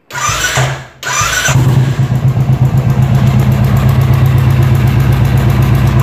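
Royal Enfield BS4 single-cylinder motorcycle engine being electric-started: the starter cranks in two short goes and the engine catches about a second and a half in, then idles. The idle carries a tick-tick that sounds like tappet noise, which the mechanic traces to the charcoal canister (evaporative emission system) rather than the valve tappets.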